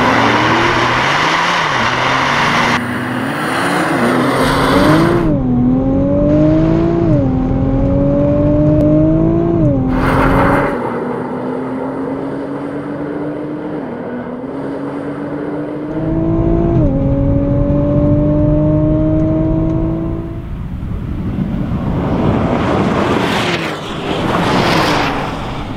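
Nissan GT-R twin-turbo V6 and Porsche 911 Turbo S twin-turbo flat-six accelerating flat out from a standing start. Engine pitch climbs and drops back at each upshift, the climbs growing longer through the higher gears. A loud whoosh of the cars passing by near the end.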